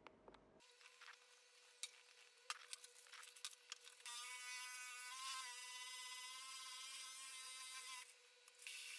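Cordless drill spinning a wooden handle blank while sandpaper is pressed around it: a steady motor whine with a rubbing hiss for about four seconds. Before that come scattered clicks and taps as the sandpaper is wrapped on, and near the end a short second burst of sanding.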